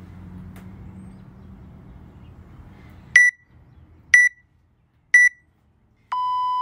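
WOD Proof interval timer's countdown beeps: three short high beeps a second apart, then one longer, lower-pitched beep lasting about a second. The long beep marks the end of one 30-second interval and the start of the next round.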